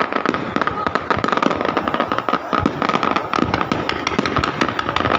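Fireworks going off in a dense, continuous barrage of rapid crackling pops, with a steady high tone running through.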